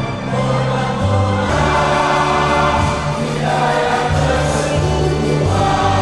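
Song with a chorus of many voices singing together over sustained bass notes that change every second or so.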